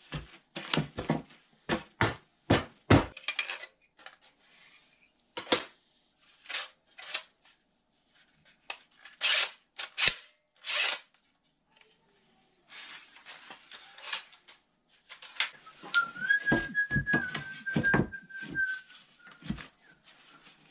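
A quick run of sharp knocks, like wood being knocked and tapped while it is worked. Midway come three short hissing scrapes. Near the end a steady whistled note holds for about three seconds, with more knocks under it.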